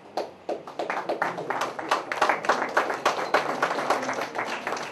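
A roomful of people applauding: many overlapping hand claps that start suddenly and begin to thin out near the end.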